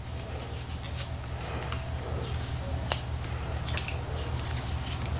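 Light scraping and small crackling clicks as a blade slices old, oil-soaked electrical tape off a car wiring harness, over a steady low hum.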